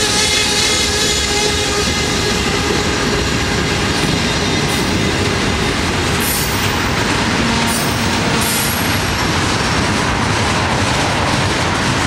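Freight cars of a long freight train rolling steadily past close by: loud, even rumble and rattle of steel wheels on the rails. Faint thin wheel squeal in the first couple of seconds fades out.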